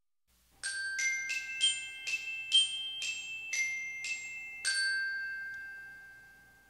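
Short intro jingle: a chiming, glockenspiel-like melody of about ten struck notes, the last one held and ringing as it fades out.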